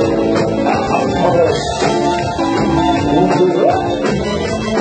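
Live grupera band playing, with electric bass, drum kit and guitar.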